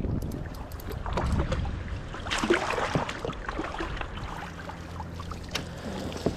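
Water splashing and small knocks around a kayak as a hooked eel is fought at the surface, with a brief louder flurry of splashing about two and a half seconds in.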